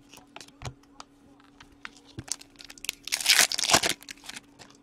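Hockey trading cards being handled: scattered light clicks and flicks of cards, then a foil card-pack wrapper crinkling for about a second, starting about three seconds in, the loudest part. A faint steady hum runs underneath.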